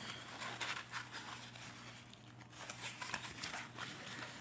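Rustling and soft crinkling of a rolled diamond painting canvas and its plastic film being handled, in scattered short crackles over a faint steady hum.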